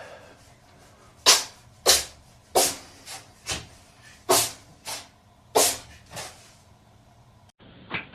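A cat sneezing over and over: about nine short, sharp sneezes a little over half a second apart, some louder than others. Near the end there is one more sneeze.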